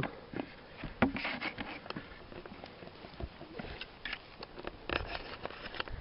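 A cut mushroom is dropped into a plastic bucket of boletes with a sharp knock about a second in, followed by irregular clicks and rustles of handling and footsteps on dry moss and pine litter.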